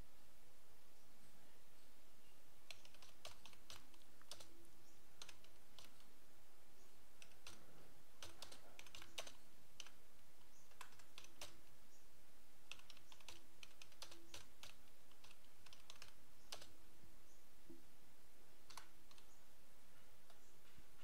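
Computer keyboard being typed on: runs of quick keystrokes broken by short pauses, over a steady background hiss.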